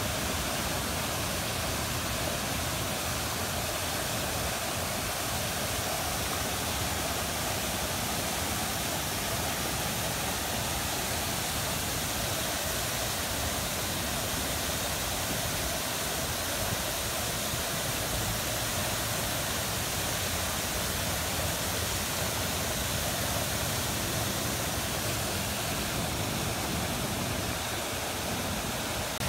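Fountain jets spraying up and splashing down into a large reflecting pool: a steady rush of falling water.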